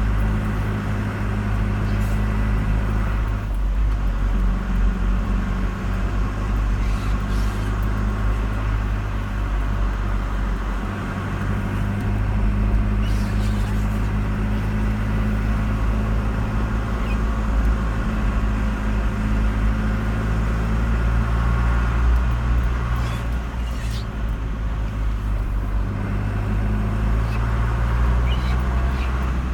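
Car engine and road noise while driving, a steady low hum whose pitch shifts a couple of times.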